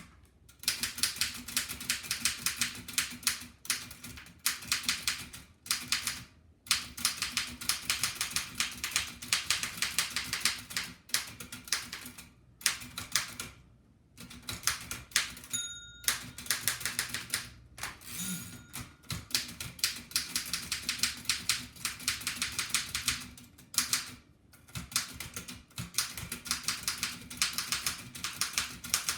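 1894 Densmore No. 1 typewriter being typed on fast: rapid key and typebar strikes come in runs with short breaks between them. A short bell rings once, about halfway through, marking the end of a line.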